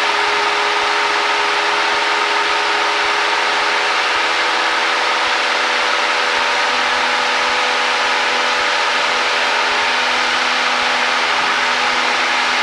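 Cessna 172's four-cylinder piston engine and propeller running steadily, heard inside the cockpit, with a constant hum and airflow hiss while climbing out on climb power.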